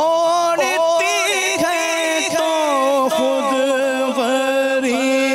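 A solo voice sings a long, drawn-out melodic line with no clear words, gliding between held notes, in the unaccompanied chant style of an Urdu nazm.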